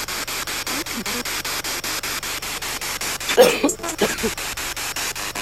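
SB7 spirit box sweeping through radio stations: a steady hiss of static chopped by rapid, regular breaks many times a second, with a brief louder snatch of sound about three and a half seconds in.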